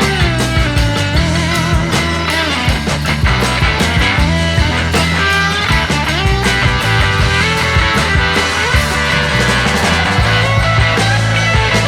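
Rock music with guitar, loud and steady.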